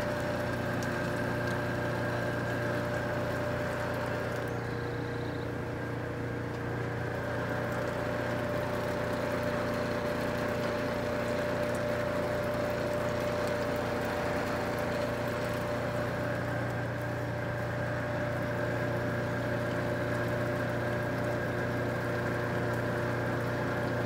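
Engine-driven water pump running at a steady speed, drawing water from the well: a constant, even engine hum with no change in pitch.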